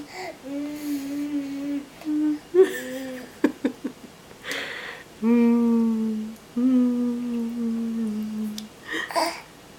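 A baby humming a series of long, steady low notes, each held for a second or two, with short breathy pauses and a few small clicks between them; the last two hums are the longest.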